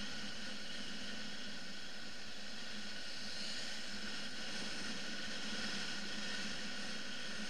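BMW F 650 GS motorcycle riding at a steady pace: an even hum from the engine mixed with wind and road noise, heard from a camera mounted on the bike.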